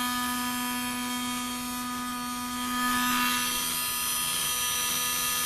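A washing machine drain pump spun as a generator, running steadily under load with a whine of many steady tones over a low hum. About three seconds in the hum drops away and a rushing noise swells.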